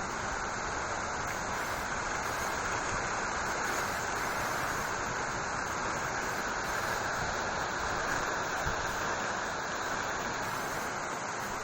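Heavy rain pouring steadily, a constant even hiss.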